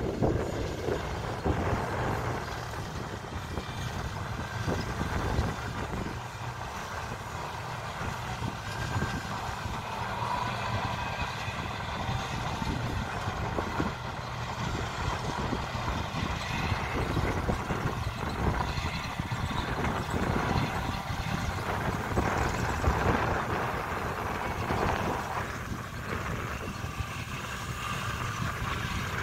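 New Holland T7 tractor pulling an Oxbo hay merger through windrows of cut hay, engine and merger running steadily under load.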